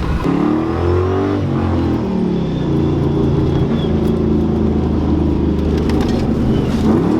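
Car engine revving: its pitch climbs and drops shortly after the start, holds fairly steady, then climbs sharply near the end as the throttle opens.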